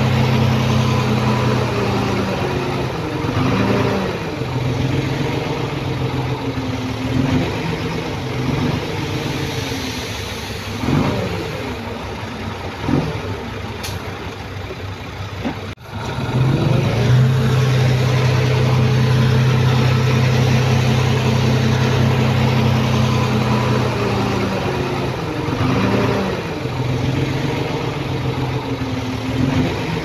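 Heavy diesel engine of a bulldozer or dump truck running steadily, its pitch dipping and rising several times as the revs change, with a brief break just past halfway.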